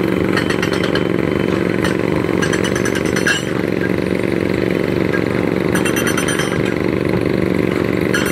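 Excavator's diesel engine running steadily, with three short spells of rattling metallic clatter.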